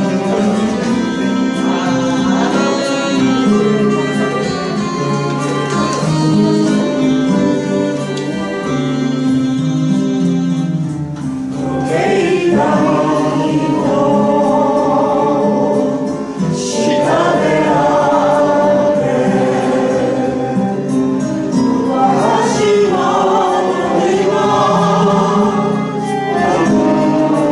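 Music: an instrumental passage, then about twelve seconds in a group of voices starts singing a song over the accompaniment.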